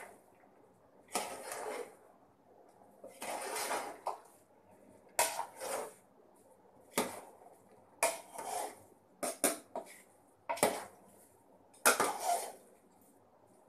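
Steel ladle knocking and scraping against a large metal cooking pot while folding part-boiled rice into wet chicken masala. About ten strokes, a second or so apart, each a sharp clack followed by a short scrape through the rice.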